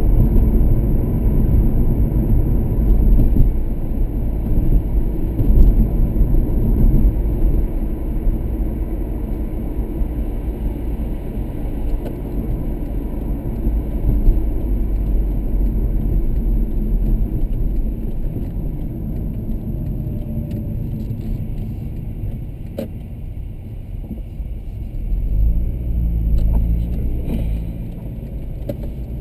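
Car driving on town roads, heard from inside the cabin: a steady low rumble of engine and tyre noise. Near the end the engine note rises briefly as the car pulls away.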